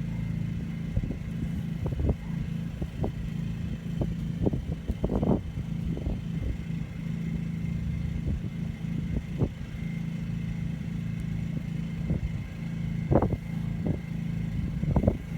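Westinghouse iGen2500 inverter generator running steadily in eco mode, heard from about 21 feet away. Wind buffets the microphone in irregular thumps.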